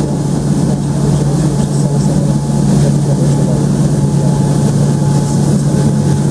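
Boeing 787 Dreamliner's jet engines idling: a loud, steady low hum with a faint thin whine above it.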